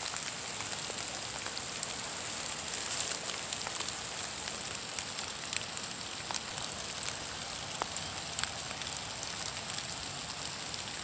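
Steady hiss of rain falling on the woods, with scattered ticks of drops hitting leaves and twigs.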